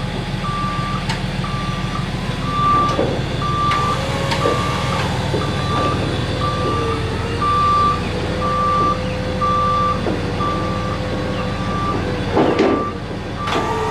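Electric forklift's backup alarm beeping steadily, about one beep a second, over a steady low hum, with a wavering whine and a few knocks from the moving machinery.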